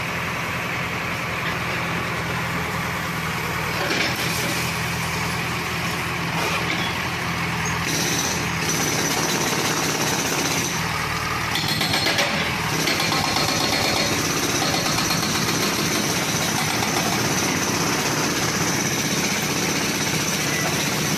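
JCB backhoe loader's diesel engine running steadily while its arm breaks up a concrete building. A few louder bursts of crashing and scraping rubble come between about 4 and 13 seconds in.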